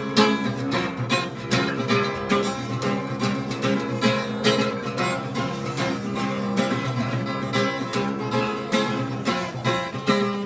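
Acoustic guitar strummed in a quick, even rhythm over sustained chords.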